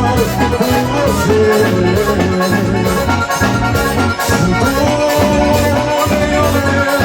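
Band music led by an accordion, with held melody notes over bass and percussion keeping a steady, regular beat.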